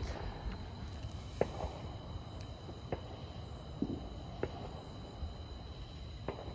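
Evening storm ambience: a steady high-pitched insect drone over a low rumble, with about half a dozen sharp short pops scattered through it.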